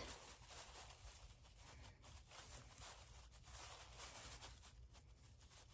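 Near silence, with faint rustling from red plastic tablecloth streamers being handled on a hoop.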